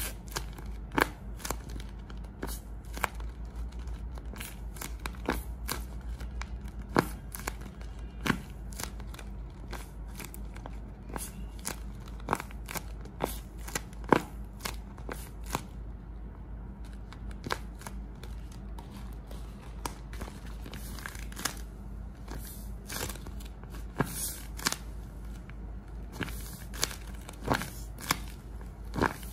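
Handmade tape-covered paper squishies being squeezed and kneaded by hand. The paper and tape crinkle constantly, with irregular sharp crackles about once or twice a second.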